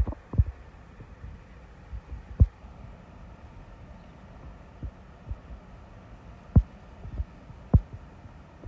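Gusty thunderstorm outflow wind buffeting the microphone: irregular low thumps and rumbles over a steady low rush. The strongest gusts hit about two and a half, six and a half and eight seconds in.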